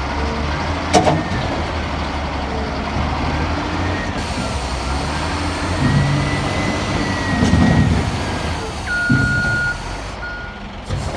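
Heavy diesel earthmoving machinery running with a steady low rumble, with a sharp knock about a second in and several heavier thumps later, as rock is handled. A steady beep, like a reversing alarm, sounds near the end.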